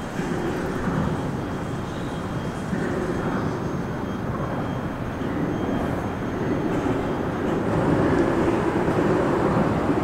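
Highway traffic crossing the Pennybacker Bridge overhead: a steady rush of tyres and engines, like cars on a speedway, swelling somewhat louder in the second half.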